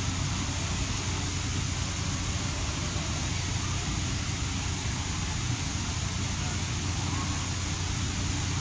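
Steady waterfront background noise: a constant low hum under an even hiss, with no distinct events.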